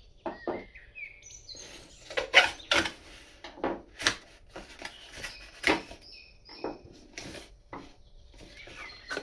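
Irregular hard clicks and knocks from handling a set of acetate-handled screwdrivers, loudest a little after two seconds in and again near four and six seconds. Birds chirp in the background near the start and end.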